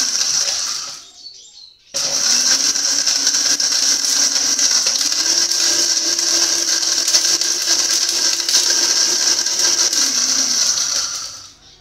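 Electric countertop blender grinding a dry mix of almonds, carob and laying-hen feed. It cuts out about a second in and starts again a second later. It runs on with its motor pitch rising and later falling back, then winds down near the end.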